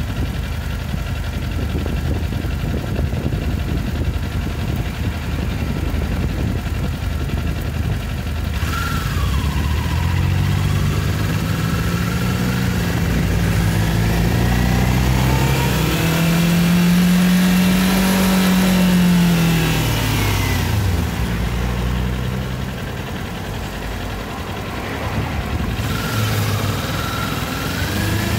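Kawasaki Ninja 400's parallel-twin engine idling with a steady low rumble, then pulling away about a third of the way in, the revs climbing to a peak, dropping about two-thirds of the way in, and climbing again near the end. Wind rushes over the microphone once the bike is moving.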